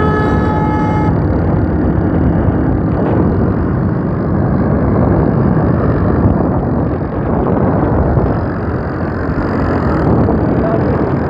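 Dense running noise of vehicles at road speed: a Massey Ferguson 240 tractor's diesel engine running flat out alongside, mixed with heavy wind and engine rumble from the moving vehicle that carries the microphone. A steady tone with several overtones stops about a second in.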